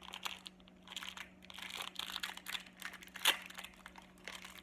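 A small crinkly plastic wrapper being crinkled and pulled open by hand in short, irregular crackles, with one sharper, louder crackle about three seconds in.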